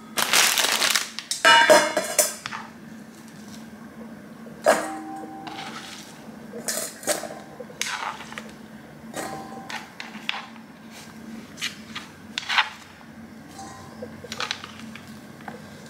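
A stainless steel mixing bowl set down on a tiled counter with a loud clang and a brief ring near the start, then handfuls of sliced bell peppers dropped into it, each landing with a soft knock, some making the bowl ring briefly.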